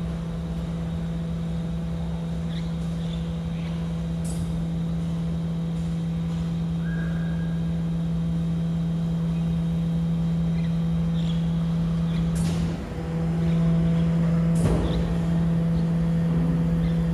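Rubbish truck's diesel engine running steadily at idle, a constant low hum. A few brief sharp sounds stand out, and about 13 seconds in the running dips briefly, then runs a little louder.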